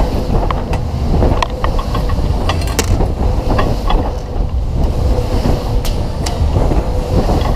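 PWS Twist fairground ride spinning at speed, heard from the rider's car: a loud, steady low rumble with scattered sharp clicks and knocks from the moving car.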